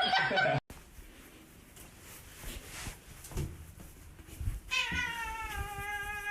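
A cat's long, drawn-out meow, starting about three-quarters of the way in and held with a slight fall in pitch. Before it, a brief cry cut off abruptly near the start and a few faint knocks.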